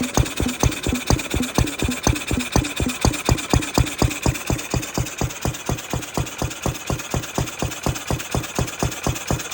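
Ruston 6PS single-cylinder stationary petrol engine running steadily, a sharp firing beat about five times a second.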